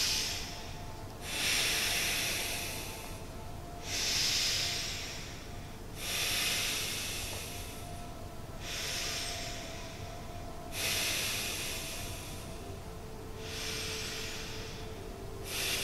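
A man breathing deeply and audibly close to the microphone: about eight long, hissing breaths in and out, evenly paced, each around two seconds. This is a slow, pumping meditation breath drawn in on the inhale and pushed out on the exhale.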